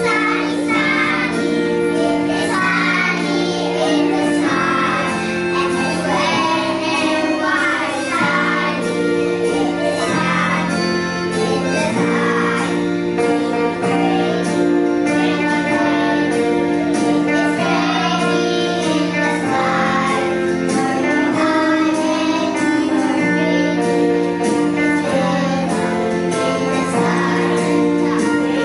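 A group of young children singing a song together over held chords from an electronic keyboard, the chords changing every couple of seconds.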